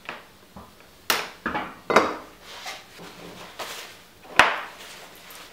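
Metal suspension parts and tools knocking and clacking as they are set down on a workbench, a handful of sharp knocks with the loudest about four seconds in. A paper towel rustles in between.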